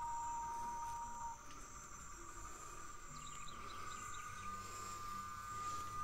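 Cicadas singing in several steady, unbroken high tones; one lower tone stops about a second in. A short run of quick high chirps comes about three seconds in.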